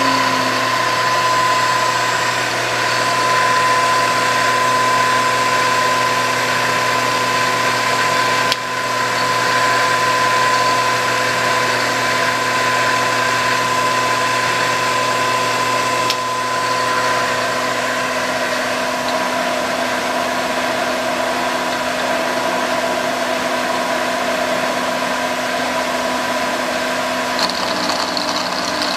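Sharp RB10 bed mill's spindle head running steadily, its motor and drive giving a steady whine made of several tones. A low hum drops out about two-thirds of the way through, and a higher whine joins near the end.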